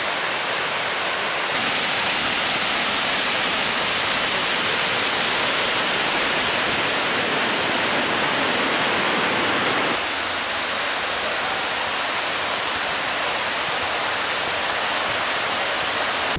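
Small forest waterfall and creek cascading over rocks: a steady rushing of water that steps abruptly louder about a second and a half in and a little quieter about ten seconds in.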